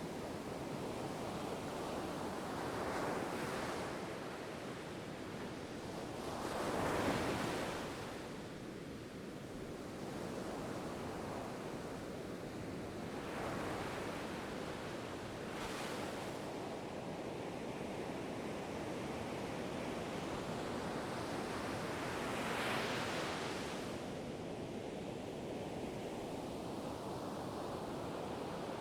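Ocean waves breaking and washing on a shore, a steady rush with several swells, the loudest about seven seconds in and another about twenty-three seconds in.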